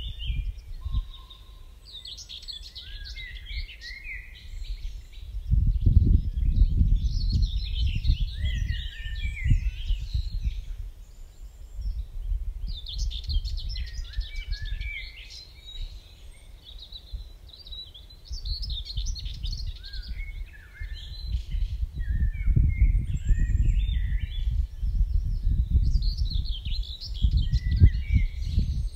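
Dawn chorus of several songbirds singing in overlapping phrases, with gusts of wind buffeting the microphone as a loud low rumble that swells twice.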